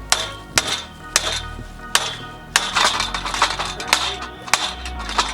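Background music with a steady percussive beat of sharp clicks over held bass notes.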